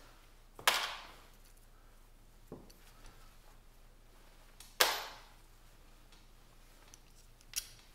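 Small parts and tools being handled on a workbench: a few sharp clicks and knocks, the loudest about a second in and again near five seconds, each dying away briefly.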